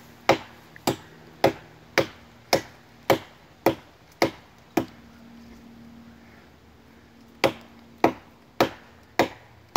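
Hatchet chopping into the trunk of a standing tree, sharp blows about two a second: nine in a row, a pause of a couple of seconds, then four more.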